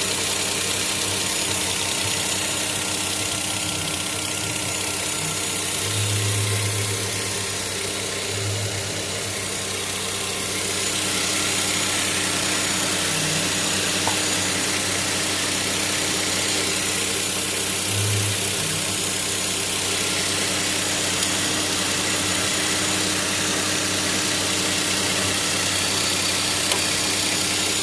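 2011 Volvo XC60 T6's turbocharged straight-six engine idling steadily, with a strange snapping noise from around the alternator that sounds like snapping fingers.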